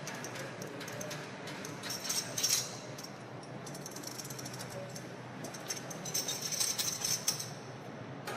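Casino floor ambience: a steady background hum of machines and crowd, with two spells of clicking and jingling, about two seconds in and again about six to seven seconds in, like chips or coins.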